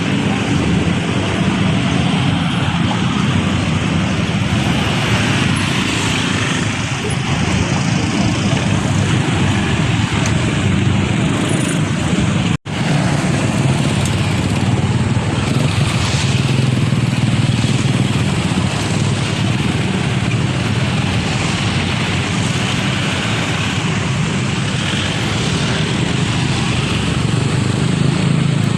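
Diesel truck engines running in passing street traffic: a steady low engine drone that lasts throughout, with a brief gap about halfway.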